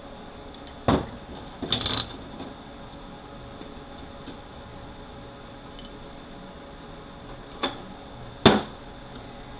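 Steel parts of a Toyota U660E automatic transmission clinking and knocking as they are handled and set down on the bench. There is one knock about a second in, a short run of clinks near two seconds, then two more knocks near the end, the last the loudest, over a steady background hum.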